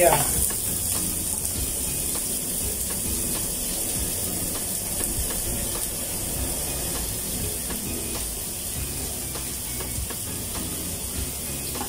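Minced garlic and ginger strips sizzling steadily in hot oil in a frying pan.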